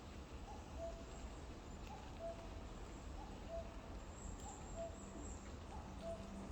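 A bird repeatedly giving a low two-note call, a higher note followed by a lower one, about every second and a half.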